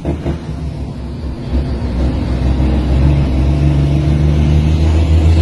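Heavy truck's diesel engine, heard from inside the cab, running steadily under way and growing gradually louder.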